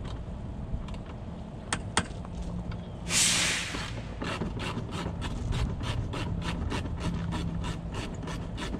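Hand ratchet clicking at an even pace of about four clicks a second, backing out a 10 mm bolt on a Volvo VNL semi's headlight housing. Before it come a couple of knocks and, about three seconds in, a short loud hiss.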